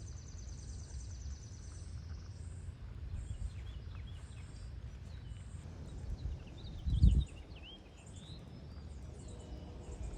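Outdoor rural ambience: insects chirping in a regular high pulse, scattered bird chirps, and a low rumble of wind on the microphone. A brief loud low bump comes about seven seconds in.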